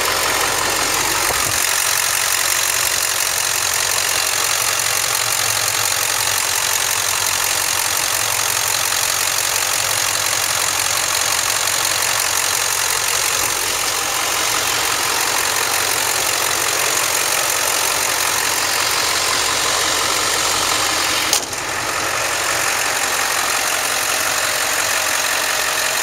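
Ford Super Duty pickup's engine idling steadily, heard close up under the open hood. A single sharp click near the end.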